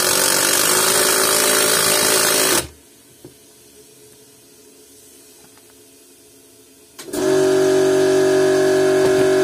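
Milwaukee cordless impact driver with a PH2 bit hammering a screw into hard wood, with a loud, rough rattle that stops about two and a half seconds in. After a pause, it runs again from about seven seconds in with a steady whine.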